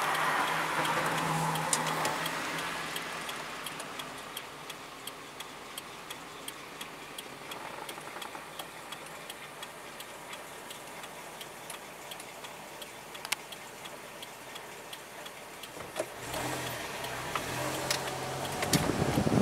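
Car's turn-signal indicator clicking steadily, with evenly spaced ticks, over a low engine hum while the car stands still. At about sixteen seconds the car pulls away and engine and road noise rise.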